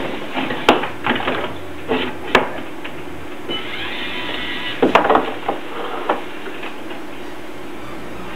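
Sharp clicks and knocks of a Lego Mindstorms robot and its plastic attachments being handled and set down on the competition table, a cluster of them about five seconds in, over a steady background hum.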